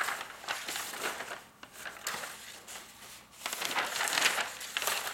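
A large sheet of silicone-coated release paper rustling and crinkling as it is lifted and handled, in uneven bursts that grow loudest in the last second or two.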